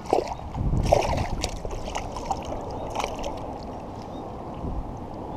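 Small European sea bass thrashing and splashing at the water surface as it is drawn in on the line, with irregular splashes, busiest in the first second or so.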